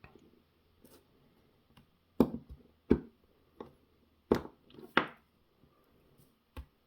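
About six sharp, irregular knocks and taps of a tool working at the small retaining tabs of a car door lock cylinder's housing, prying and tapping them free. The knocks come roughly half a second to a second apart, loudest through the middle of the stretch.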